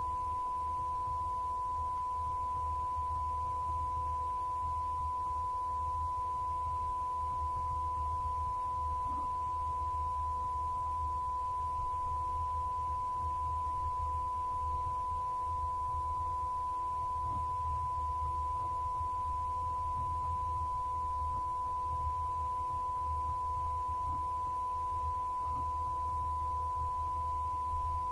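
A steady electronic test tone, one pure high pitch held unbroken like a long beep, over a faint low hum.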